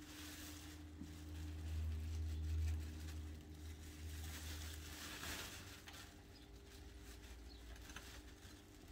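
Dry garden debris tipped from a plastic bucket into a black plastic rubbish bag, rustling, with the loudest rush about five seconds in. A low rumble fills the first three seconds.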